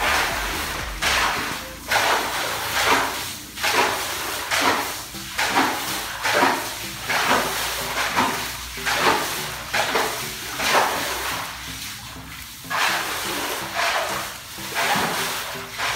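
Rhythmic splashing and swishing of shallow water on a flooded floor as it is scrubbed and pushed by hand, about one to two strokes a second.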